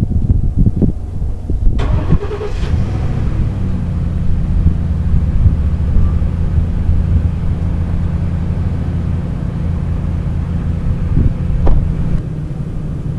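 Low buffeting noise at first, then a motor vehicle's engine starts about two seconds in and settles into a steady idle.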